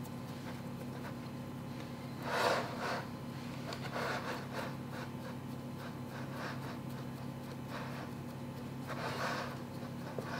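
Hands pressing and smoothing shortcrust dough up the sides of a metal springform pan: faint rubbing, with two louder soft swishes, one about two seconds in and one near the end, over a steady low hum.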